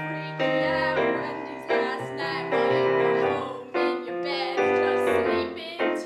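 A woman singing an improvised song over a Nord Stage 2 stage keyboard playing a piano accompaniment. She holds long notes over steady chords.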